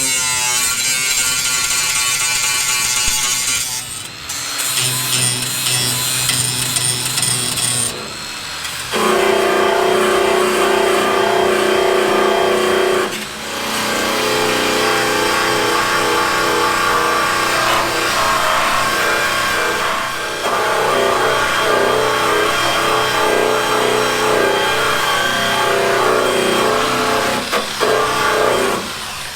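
A power tool runs with a high whine for the first several seconds. For the rest, background music plays with changing chords.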